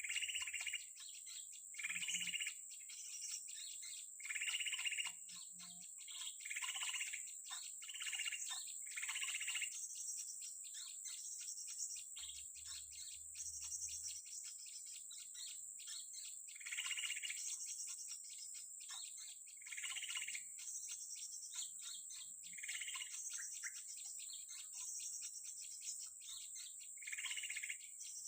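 Birds chirping in short calls every couple of seconds, with a quieter stretch in the middle, over a steady high, pulsing insect chorus of crickets or cicadas.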